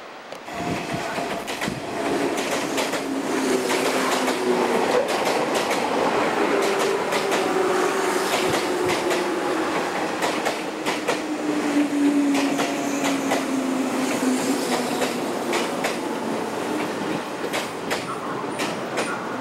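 JNR 103 series electric commuter train running along the platform and slowing: wheels clack over the rail joints, and a motor whine falls slowly in pitch as the train brakes.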